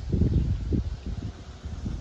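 Wind buffeting the microphone in uneven low gusts.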